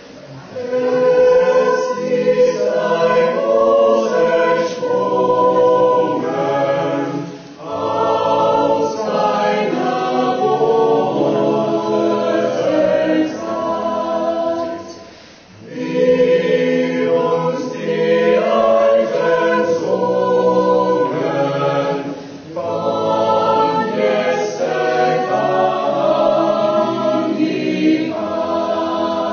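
Choir singing in long sustained phrases, with short breaks between phrases about every seven to eight seconds.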